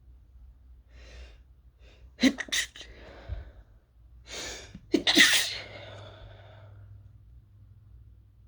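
A person sneezing, each sneeze set up by a sharp in-breath. There is a quick pair of bursts about two seconds in, then a louder sneeze about five seconds in that trails off. The sneezes are set off by fumes from toasting chili peppers.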